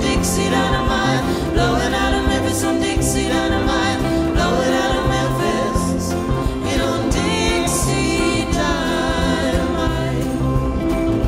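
Live acoustic band music: acoustic guitars, upright bass, hand drum and cymbals, with several voices singing together in harmony.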